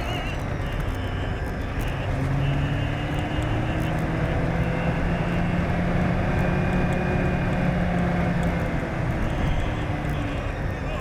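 Land Rover Defender TD5's five-cylinder turbodiesel engine running steadily at cruising speed, with a constant rush of road and wind noise and a slight drift in engine pitch.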